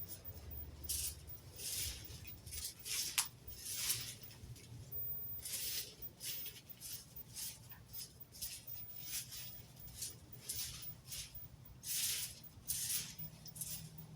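Rake scraping through dry leaves and yard debris in repeated rustling strokes, about one a second.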